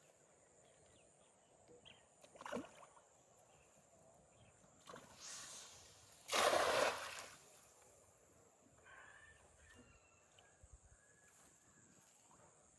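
Water splashing in a river during net fishing: one loud splash of about a second, some six seconds in, after a softer slosh, over a faint steady outdoor background.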